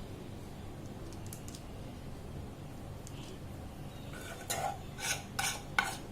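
A spoon clinking against a dish about four times near the end, with a few faint ticks a little over a second in, as the thickened ginger and brown-sugar syrup is spooned out in drops to set as candy.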